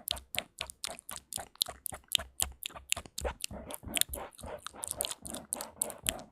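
ASMR mouth sounds close to the microphone: a quick, even run of wet tongue and lip clicks and smacks, about six a second.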